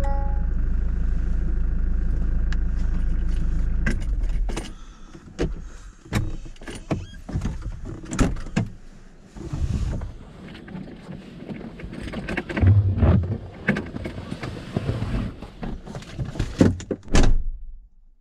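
Land Rover 90 engine idling steadily, then switched off about four seconds in. A run of knocks, clicks and rustles from the vehicle follows as the driver gets out, with a loud thump near the end.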